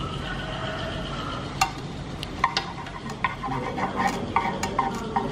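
Wooden chopsticks tapping and scraping in a metal frying pan as they stir egg, in short irregular clicks with a slight ring, starting about a second and a half in. Before them there is a steady whine.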